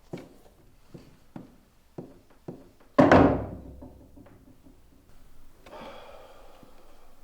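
A series of light knocks, roughly one every half second, then a loud heavy thud about three seconds in that rings out for about a second.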